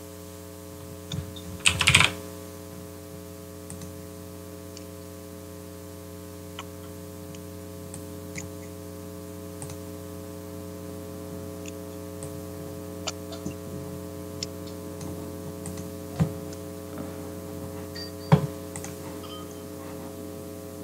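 Scattered computer keyboard and mouse clicks over a steady electrical hum, with a louder clatter about two seconds in and two sharp knocks near the end.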